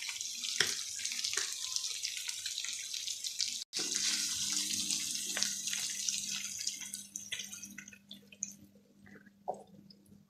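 Onions, mushrooms and bacon sizzling and crackling in a frying pan. The sizzle fades away after about seven seconds as cooking cream goes into the pan, leaving only a few faint ticks.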